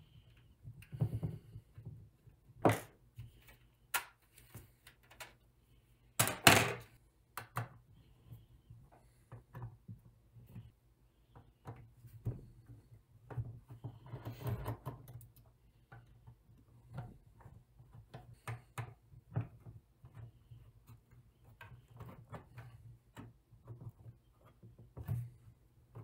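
Clicks, knocks and scrapes of a Dell Wyse 5060 thin client being taken apart by hand: screws turned out with a screwdriver, and the plastic side cover and metal chassis handled on a desk. The loudest is a clatter about six seconds in, with a longer scraping rustle around the middle.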